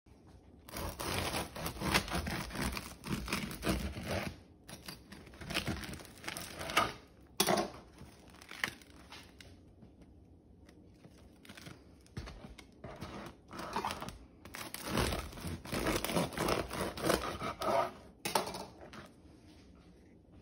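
Serrated bread knife sawing through the crisp crust and crumb of a sourdough boule in quick back-and-forth strokes, with the crust crunching. The sawing pauses after about seven seconds and starts again from about thirteen seconds as one half is cut again.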